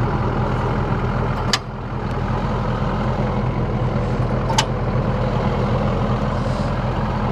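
Duramax 6.6-litre V8 turbodiesel truck engine idling steadily, with two sharp clicks, about a second and a half and four and a half seconds in, as the snowplow mount's levers are flipped to the on position.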